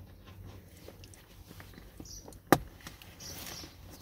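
Leather seat cover being worked over the foam cushion and into the seat frame of a VW Passat B8 seat, with handling and rustling. One sharp, loud snap about two and a half seconds in, and another at the very end, as the cover's edge is pressed home in the frame.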